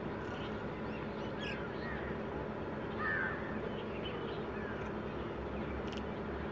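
Birds calling in scattered short chirps and calls, with one louder harsh call about three seconds in, over steady background noise.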